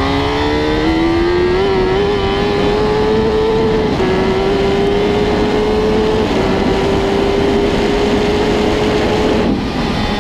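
Suzuki GSX-R1000 inline-four superbike engine revving up, then held at high revs at full speed with brief dips in pitch, and a short break near the end.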